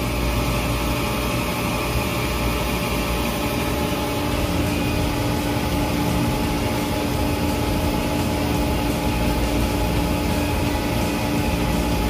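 Trane RTAA air-cooled screw chiller running: screw compressor and condenser fans making a steady hum with several steady tones, one of them growing stronger about a third of the way in. The compressor stays loaded because its slide valve is stuck and cannot unload.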